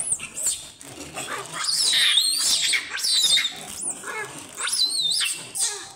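Rhesus macaques screeching during a fight, with high, wavering squeals that rise and fall in pitch, loudest from about two seconds in and again near the end.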